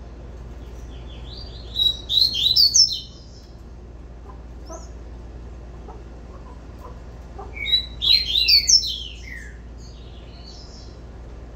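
Double-collared seedeater (coleiro) singing its 'tui tui' song: two phrases of quick, high, falling notes, about two seconds each, the first about a second in and the second near eight seconds in, with a few soft chirps between.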